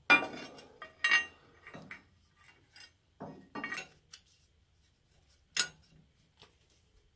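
Steel plow parts clinking and clanking as a new replacement share piece is handled and set against the Kverneland plow body. There is a loud ringing metal clank at the start and another about a second in, then a few duller knocks, and a sharp ringing clink past halfway.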